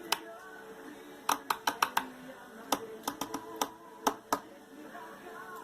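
Cockatiel knocking with its beak against a hard surface: sharp taps in quick irregular runs, about fifteen in all, stopping a little over four seconds in.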